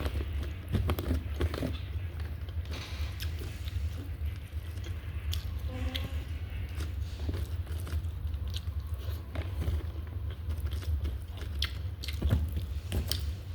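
A person eating nasi padang close to the microphone: chewing and biting with scattered small clicks and crunches, over a steady low hum.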